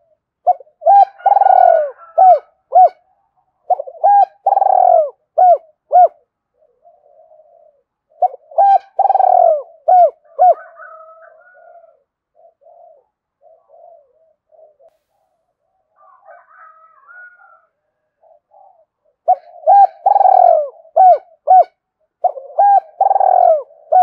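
Spotted dove cooing: five phrases of deep coos, each a long, loud note framed by a few short ones, with a long pause in the middle filled only by fainter calls.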